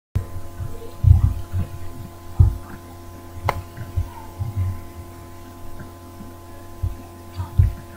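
Steady electrical hum picked up by a webcam's recording, with several dull low thumps scattered through and a single sharp click about three and a half seconds in.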